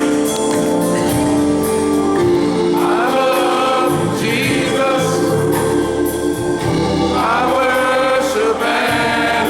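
Gospel music sung by a choir, with voices sliding up in pitch about three seconds in and again about seven seconds in.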